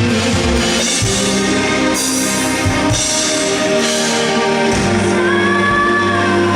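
Live rock band playing loudly, with drums, guitar and a sung vocal line that comes in about five seconds in.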